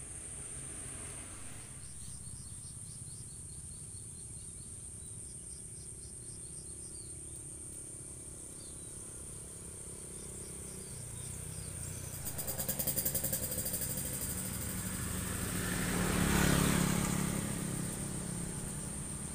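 A motor vehicle passing: a low engine rumble that swells from about eleven seconds in, loudest around sixteen to seventeen seconds, then fades. Under it, a steady high insect drone and a few short chirps early on.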